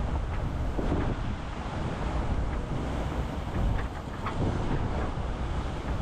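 Wind buffeting the microphone over the steady rush of sea water along a racing sailboat's hull, with a few faint short splashes or knocks.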